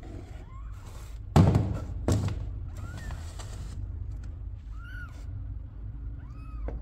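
Two heavy thumps in quick succession about a second and a half in, then a cat meowing: short cries that rise and fall in pitch, a faint one near the middle and two clearer ones near the end.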